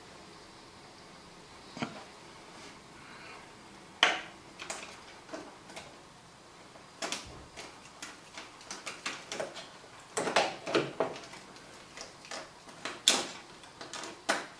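Clicks and knocks of plastic and metal parts being handled as motorcycle gauges are seated in their dash housing and a screw is fitted. A sharp knock comes about four seconds in, then a run of quick clicks and taps, and another sharp knock near the end.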